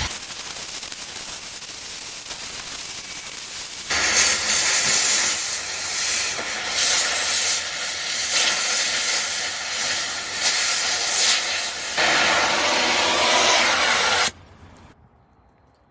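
Steady loud hissing of a metal-cutting process gouging out a crack in a steel excavator bucket. It is quieter for the first few seconds, louder from about four seconds in, and stops suddenly near the end.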